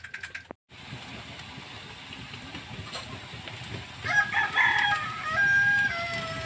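A rooster crowing once, a long stepped call starting about four seconds in, over steady background noise.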